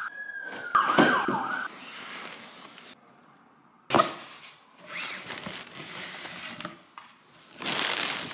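A cardboard box and a plastic-wrapped puffer jacket being unpacked: a short high squeal with a wavering pitch near the start, then several bursts of plastic packaging rustling and crinkling.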